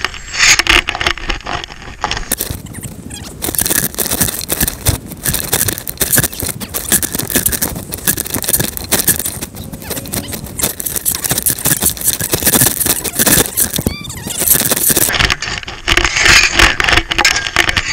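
Snow shovel scraping and scooping snow: a dense, uneven run of scrapes and knocks, picked up close by a body-worn microphone with jacket fabric rubbing against it.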